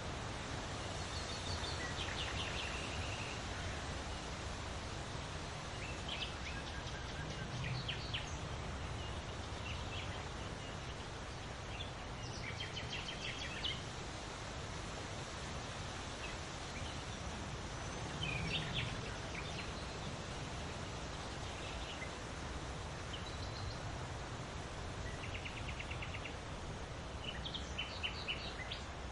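Steady outdoor wind noise, heaviest in the low end, with short bird chirps and trills breaking in every few seconds.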